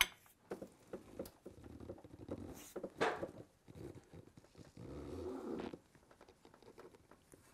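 A man straining with low effort grunts as he heaves on a long 3/4-inch drive ratchet extended with a pipe, working to break loose a very tight crankshaft pulley bolt, with faint clicks and creaks from the tool. There are two longer strains, one about a second and a half in and one near five seconds, and a sharper sound about three seconds in.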